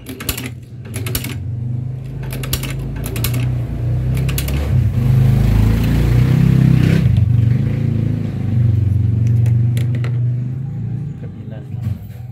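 Long-arm shoe-patcher sewing machine stitching through a leather bag handle: a steady low running sound with sharp clicks, loudest in the middle and easing off near the end.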